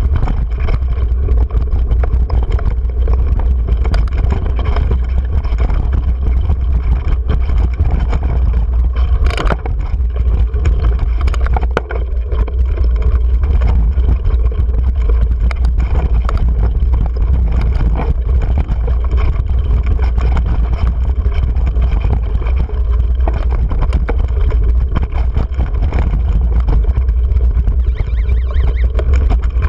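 Steady wind rumble on an action camera's microphone, with the rattle and knocks of a mountain bike rolling over a rocky dirt trail.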